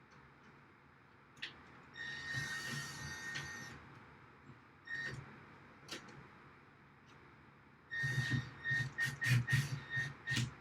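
Cordless drill motor whirring in bursts: one longer run, a short one, then a quick series of stop-start trigger pulses near the end, with a few sharp clicks between.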